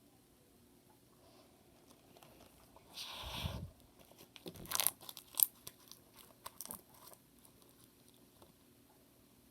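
Homemade slime being squished and played with by hand. A short squishing burst comes about three seconds in, followed by a run of sharp crackles and pops.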